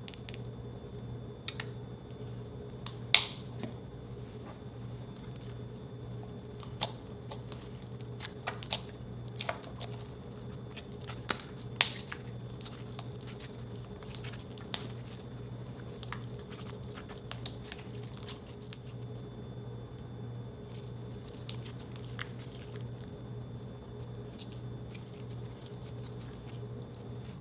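White slime being squeezed and kneaded by hand, giving irregular sticky clicks and small pops, most of them in the first half and the loudest about three seconds in. A steady low hum runs underneath.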